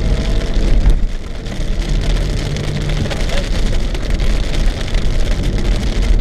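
Rain striking a car's windshield and roof, heard from inside the cabin as dense fine ticking, over the steady low rumble of the moving car.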